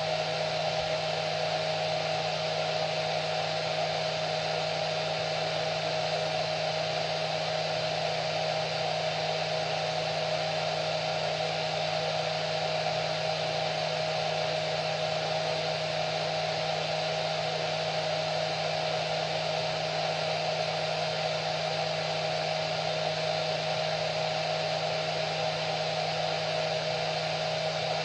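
Hair dryer running steadily, a constant rush of air with a steady motor whine.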